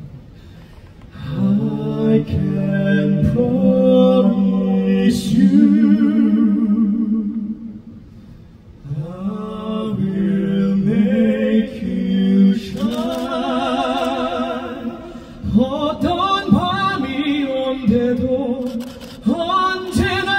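Male vocal quartet singing a phrase a cappella through stage microphones, the voices held with wide vibrato. The singing breaks briefly near the start and again about eight seconds in.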